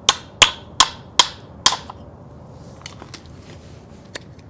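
Five quick hammer blows on the steel wiper-motor housing, about two and a half a second, each ringing briefly, then a few faint metal taps. The hammer is knocking the motor apart to free its armature, seized by water and rust inside.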